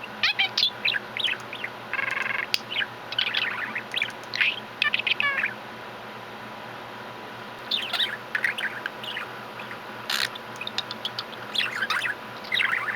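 Budgerigar chattering: rapid, busy chirps and warbles for the first five seconds or so, then after a pause shorter bursts of chirping. A single sharp click comes about ten seconds in.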